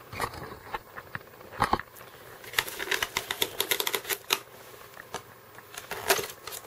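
Hands working apart a styrofoam packing insert: irregular sharp clicks, creaks and rubbing of foam on foam, with a quick flurry of clicks about halfway through.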